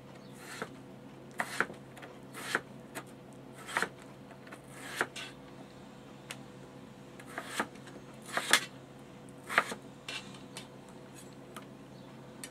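Chef's knife cutting yellow potatoes into chunks on a cutting board: a dozen or so irregular knocks as the blade goes through the potato onto the board.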